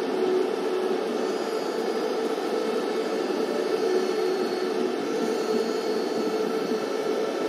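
Steady, even hiss-like noise with a faint hum running under it, unchanging throughout.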